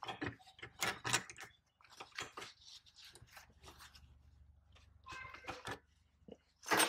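Irregular light clicks, clinks and scrapes of hand tools and hardware being handled, with a sharper knock near the end.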